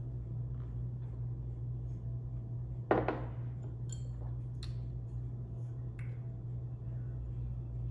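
A ceramic mug set down on a stone countertop with a single knock about three seconds in, followed by a few faint small clicks, over a steady low hum.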